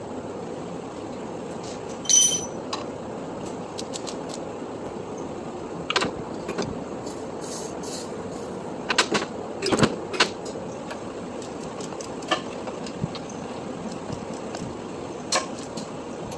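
Metal tools and parts clinking and knocking against an engine being assembled, with one ringing metallic clink about two seconds in as the loudest, over a steady background noise.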